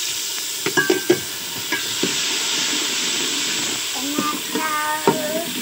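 Chopped tomatoes sizzling in hot ghee and fried onion-chilli masala in an aluminium pot, a steady hiss. A metal spoon stirs them and clinks against the pot a few times in the first two seconds.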